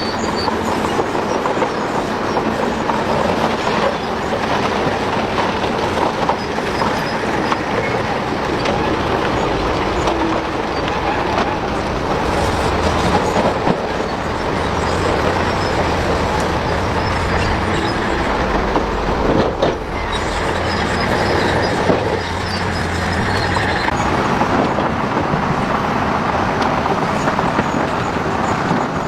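Heavy earthmoving machinery running: steady engine and machine noise that goes on without a break.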